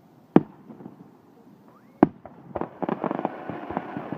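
Fireworks going off: a single sharp bang about half a second in, another at about two seconds, then a quick run of crackling pops.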